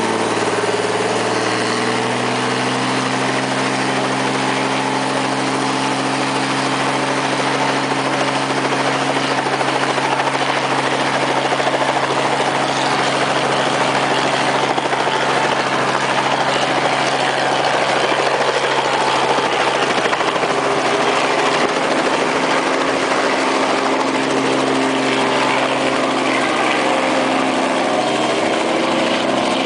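Light helicopter's engine and main rotor running, its pitch rising slightly at the start as the rotor comes up to speed, then lifting off in the latter half.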